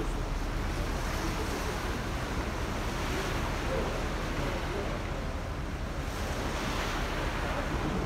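Wind and sea waves heard from the deck of a moving ferry: a steady rushing noise with wind buffeting the microphone and a low rumble underneath.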